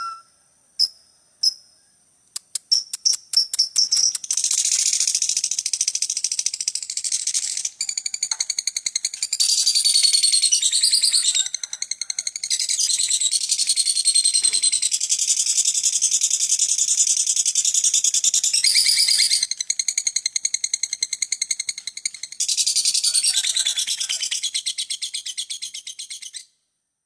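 A lovebird's ngekek: after a few separate sharp chirps and a quickening run of clicks, it breaks into a long, very rapid, high-pitched chattering trill that runs on for over twenty seconds with only brief dips, then stops suddenly near the end.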